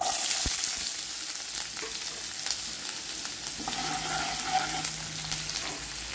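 Chopped onions dropped into hot oil with curry leaves, mustard and cumin seeds in a non-stick kadhai, sizzling sharply the moment they go in. The sizzle then eases to a steady frying hiss while a wooden spatula stirs and scrapes them around the pan.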